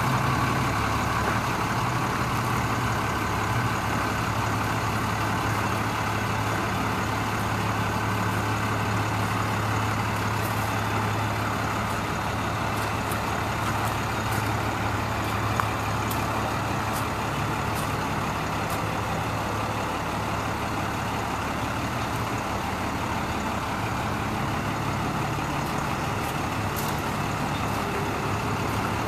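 Ford F800 bucket truck's Cummins 5.9-litre diesel engine running steadily, driving the hydraulics that raise and extend the Versalift aerial boom. A few light ticks are heard over the drone.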